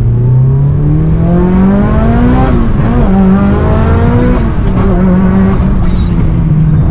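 Mitsubishi Lancer Evolution VII's turbocharged 4G63T four-cylinder engine, built for alcohol injection and over 2 bar of boost, pulling hard at full throttle, heard from inside the cabin. The revs climb with a high whistle rising alongside, drop at a gear change about two and a half seconds in and climb again, then ease off to a steadier note a little past halfway.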